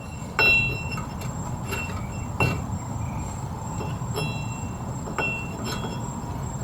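Light metallic clinks and taps of drum brake parts being handled: the wheel cylinder pins being worked into place against the brake shoes, about six short ringing clicks over a steady low hum.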